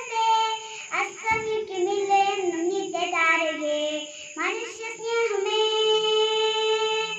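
A young girl singing a Malayalam song in a series of phrases, ending on a long held note in the second half.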